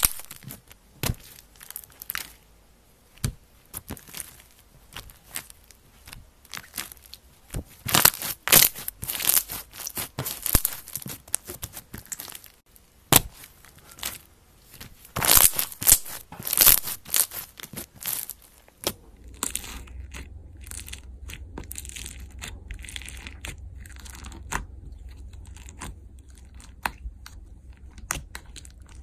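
Sticky slime being squeezed and stretched by hand, giving irregular wet clicks, pops and crackles as trapped air bubbles burst. About two-thirds through, the crackles grow softer and sparser over a steady low hum as a thick white slime is pressed in a plastic tub.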